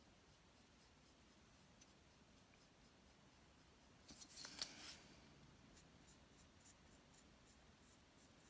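Near silence, broken about four seconds in by a second or so of faint scratching: a small paintbrush scrubbing acetone into softened plastic wood filler on a wooden carving.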